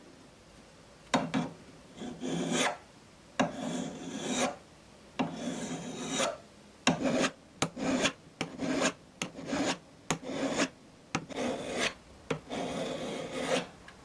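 Rasping strokes of a hand tool, a jeweler's file or saw, worked across a sterling silver chain link: about a dozen separate scrapes with short pauses, shorter and quicker in the middle.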